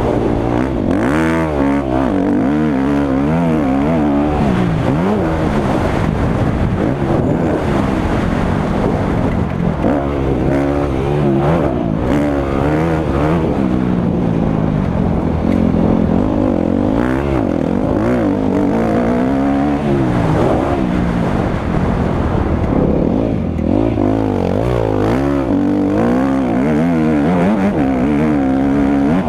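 Motocross dirt bike engine heard on board while ridden hard, its pitch climbing and dropping again and again as the throttle is opened and closed and gears change.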